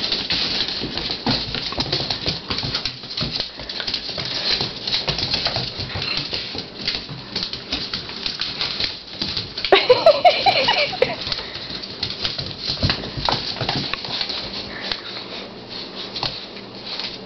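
Pitbull puppies wrestling on a tile floor: claws pattering and scrabbling with scuffling throughout, and one puppy's high-pitched cry for about a second, about ten seconds in.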